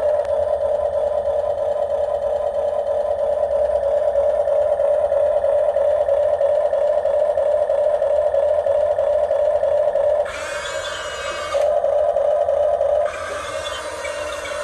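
RC excavator's motor whining steadily at one pitch. About ten seconds in the sound turns higher and rougher for about a second, returns, then changes again near the end as the machine's load shifts.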